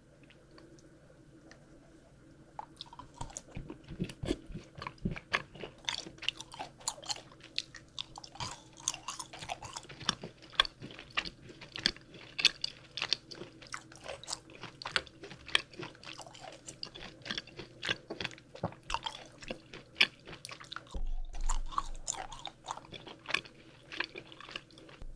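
A person chewing and crunching candy: dense, irregular crisp crackles and bites, starting about two seconds in.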